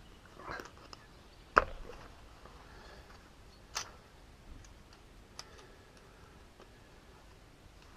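A few sharp clicks and knocks of small metal hand tools being handled, with a soft rustle of gloves; the loudest knock comes about a second and a half in, another near four seconds.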